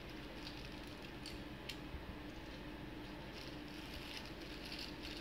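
Faint rustling of a small plastic bag and light clicks of Lego pieces being handled, over a low steady hum.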